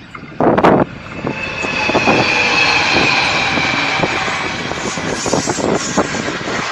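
A train passing close by: a short loud burst about half a second in, then a rush of noise that swells over the next two seconds and holds, with a faint high whine running through it.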